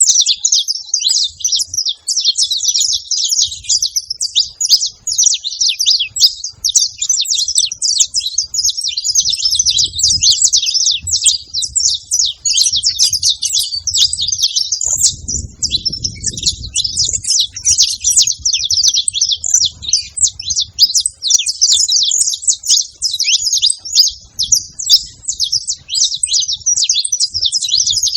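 A group of saffron finches chirping and calling at once, many quick high notes overlapping without a break.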